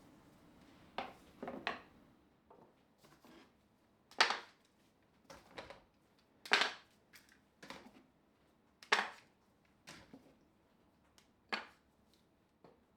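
Hand work on wood: a series of short knocks and scrapes, the four strongest about every two and a half seconds, with quieter ones between.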